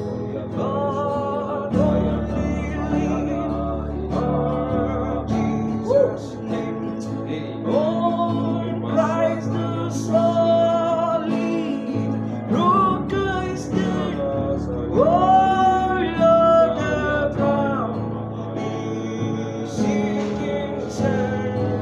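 A hymn sung with vibrato over guitar and steady bass accompaniment.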